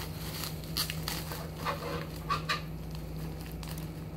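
Plastic bubble wrap being handled and pulled loose, crinkling with several short crackles.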